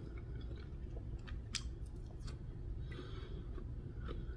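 A person chewing a mouthful of food with the mouth closed, with a couple of sharp clicks in the middle.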